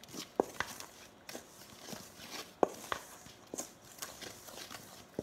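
Wooden spoon stirring a crumbly flour, egg and melted-butter dough mix in a stainless steel bowl: soft scraping with a few irregular sharp knocks of the spoon against the bowl, the loudest about two and a half seconds in.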